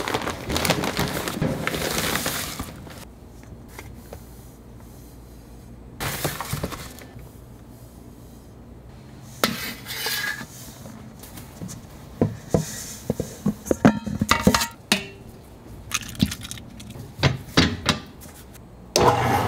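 Kitchen work: metal utensils and dishes clinking and knocking, with a hissing noise over the first few seconds and a quick run of sharp clatters in the second half.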